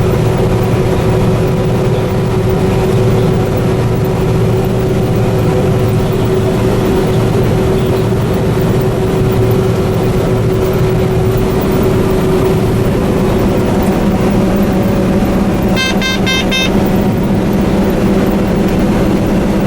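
Combine harvester running steadily under load, a constant engine and machinery drone. About sixteen seconds in, a brief run of quick high electronic beeps sounds over it.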